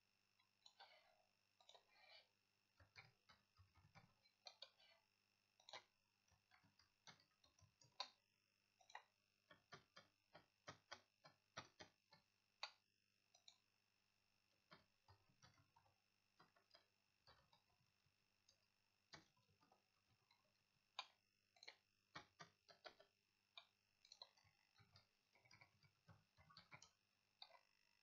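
Faint typing on a computer keyboard: irregular key clicks in quick runs with short pauses, over a faint steady electrical whine.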